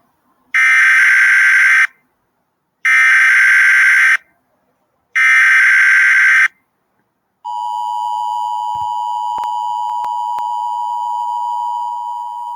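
Emergency Alert System tones: three loud, buzzy bursts of SAME header data, each about a second and a half long with a short gap between. About seven and a half seconds in, the steady two-tone EAS attention signal starts and holds.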